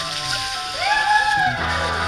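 Background music with a steady bass line and a pitched note that slides up and falls back about a second in.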